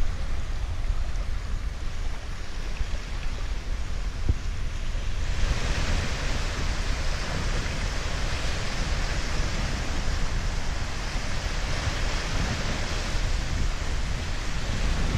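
Sea wind buffeting the microphone with a low rumble, over small sea waves washing against the shore. About five seconds in, the wash of the waves becomes louder and brighter.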